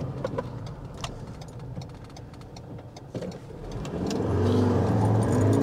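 Low cab noise with a few light clicks, then about four seconds in the Ford Ranger's engine picks up and revs, rising in pitch, heard from inside the cab as the truck accelerates away. A throttle controller on its most aggressive setting sharpens the engine's response.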